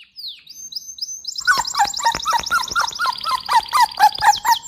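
High-pitched chirping calls: a few sparse falling chirps at first, then about a second and a half in a dense, rapid run of many short overlapping chirps, several each second.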